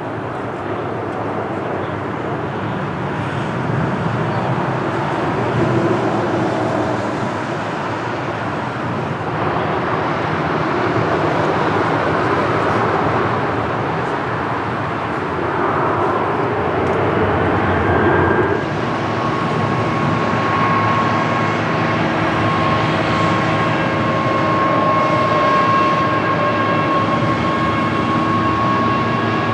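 Jet airliner engines running as the planes land and taxi: a steady rushing noise that swells and eases. About two-thirds of the way through, a steady high whine in several pitches joins it.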